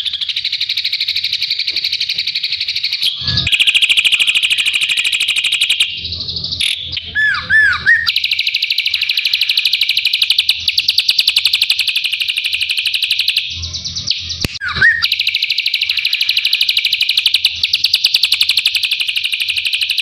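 Ashy drongo singing a continuous, rapid chatter of tightly packed sharp notes. It is broken by a few short downward-sliding whistles about seven seconds in and again near fifteen seconds.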